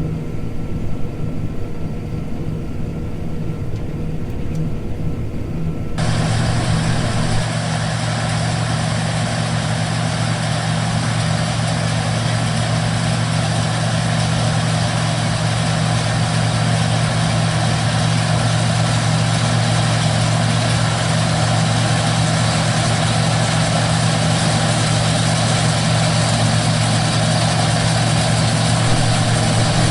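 A combine harvester runs steadily at work, a continuous engine and machinery hum. About six seconds in, the sound switches abruptly to a louder, fuller engine noise with a strong low hum, which carries on unchanged.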